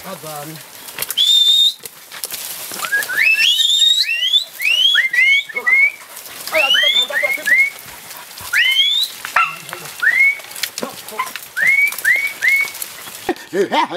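Short, rising whistled notes, repeated throughout in quick runs of two to four.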